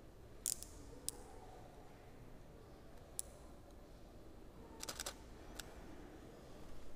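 Canon EOS 6D shutter clicking: single shots about half a second and a second in, another around three seconds, then a quick run of three or four frames near five seconds and one more just after, over quiet room tone.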